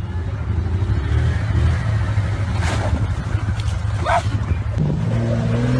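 Off-road vehicle engine running with a low rumble, broken by two short bursts about three and four seconds in, the second a shout. Near the end the engine settles into a steadier, higher drone.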